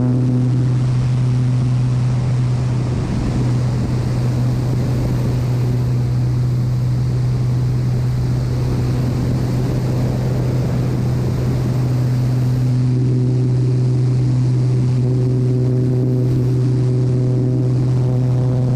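Crop-spraying airplane's engine and propeller giving a loud, steady low drone, with wind rushing over the nose-mounted microphone, heaviest during the steep banking turn in the middle.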